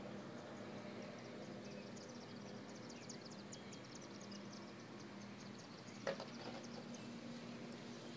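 Faint steady hum and microphone static, with a quick run of short high chirps a few seconds in and a single sharp click later on.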